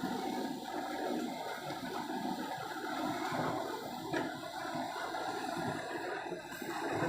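Water rushing and churning steadily, as around a fast boat running through rough water.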